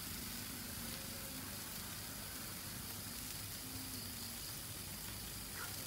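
Steady, even hiss of light rain.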